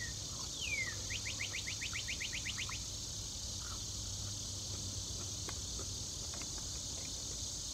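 Insects keep up a steady high-pitched chorus. Over it a songbird sings once near the start: two falling whistles, then a quick trill of about a dozen short rising notes lasting under two seconds.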